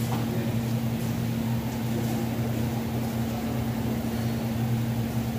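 Steady low hum of an electric motor running at an unchanging pitch, with no distinct knocks or clicks.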